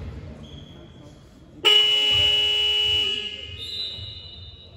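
Basketball game buzzer sounding one steady horn-like blast that starts suddenly about a second and a half in, holds for just over a second, then fades away in the hall's echo.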